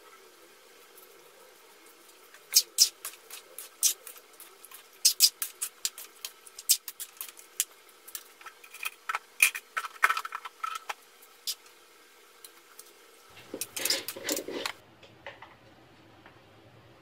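Stainless spoon clinking and scraping against an aluminium wok as a chunky chicken and vegetable stew is stirred, in sharp, irregular clicks. Near the end comes a denser clatter lasting about a second and a half.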